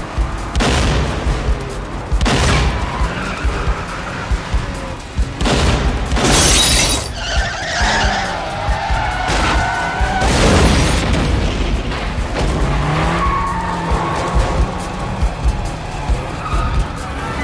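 Car-chase soundtrack: car engines revving and changing pitch with tyre noise, under dramatic film-score music, broken by several sudden loud hits, the biggest about six and a half seconds in and another about ten and a half seconds in.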